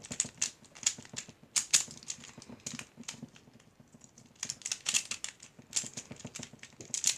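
Magnetic Pyraminx puzzle being scrambled: quick runs of plastic clicks and clacks as its faces are turned, with a short lull a little past the middle.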